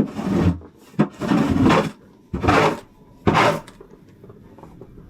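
Snow shovel scraping and scooping snow, four strokes in a row.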